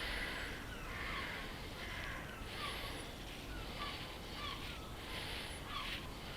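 Birds calling repeatedly, with short falling chirps between the louder calls.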